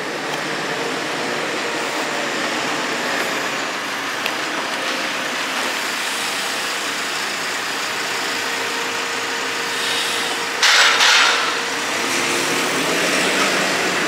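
JCB Loadall telehandler's diesel engine running steadily as the machine carries a bundle of hay bales on its grapple, with a faint steady whine through most of it. A short, louder rush of noise comes about ten and a half seconds in.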